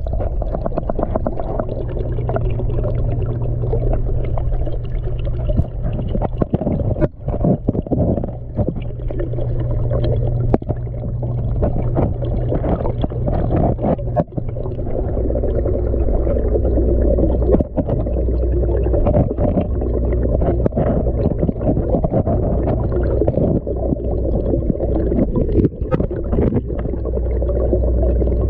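Muffled underwater sound of a camera submerged in a fish pond: a steady low hum with a rumble of moving water and scattered knocks against the camera housing.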